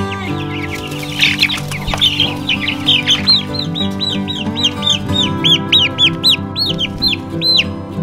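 Young chicks peeping: scattered chirps at first, then a run of clear, high, arched peeps about three a second from a few seconds in. Background music plays steadily underneath.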